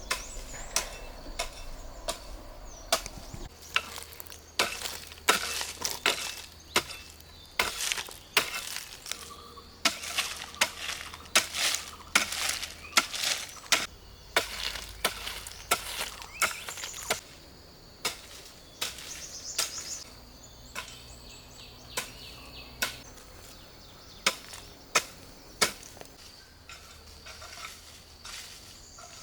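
An irregular series of sharp knocks and chopping strokes, coming in quick runs, with brief pauses between.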